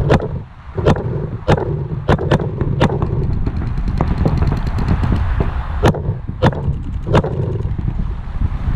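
Paintball game: sharp single pops of paintball markers firing and balls smacking an inflatable bunker, coming at irregular intervals, with a faster rattle of distant shots in the middle.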